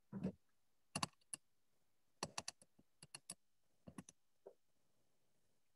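Faint, irregular clicks of typing on a computer keyboard, a dozen or so short taps in small clusters with silence between them.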